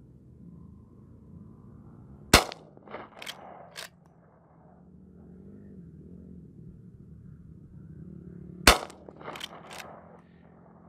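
Two shots from a Rossi R92 lever-action rifle chambered in .44 Magnum and loaded with .44 Special rounds, about six seconds apart. Each shot is followed by a few quick metallic clacks as the lever is worked to eject the case and chamber the next round.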